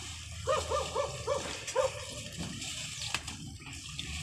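A dog barking, a quick run of about five short barks in the first two seconds.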